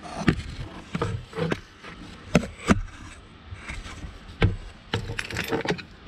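Scattered clicks, taps and knocks of hand tools and hard plastic parts being handled around a steering column's ignition switch, several sharp ones close together in the middle.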